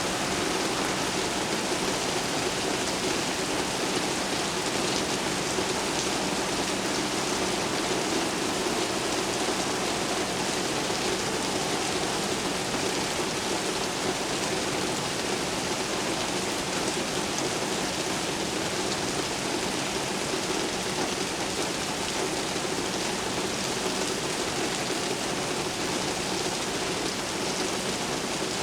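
Steady rain falling, an even hiss of drops with no thunder.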